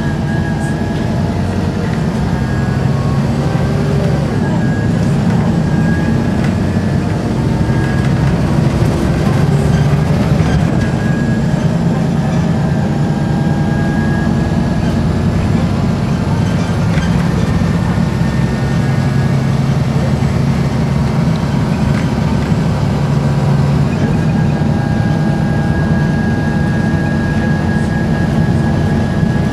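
Volvo B7RLE bus's diesel engine and ZF automatic driveline running under way, a steady low drone with whining, groaning tones that glide up and down in pitch as the bus accelerates and slows. A high steady whine comes near the start and again near the end. The groan is of unknown cause, which the owner thinks may be an engine belt.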